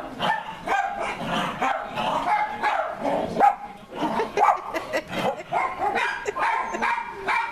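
Dachshund barking and yipping in rough play as it wrestles and mouths a person's hand: a quick, unbroken string of short barks.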